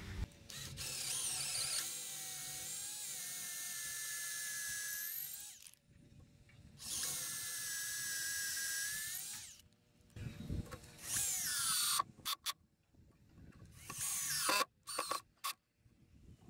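Cordless drill boring into a wooden board with a twist bit: two long runs of the whining motor, the first about five seconds and the second about three, then several short bursts of the drill near the end.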